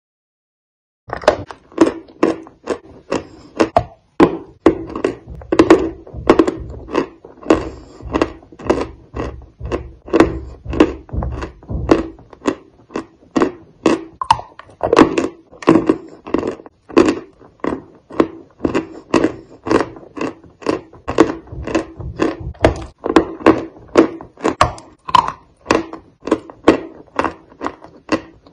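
Close-miked chewing of a crumbly cookie: steady rhythmic chews, two or three a second, starting about a second in.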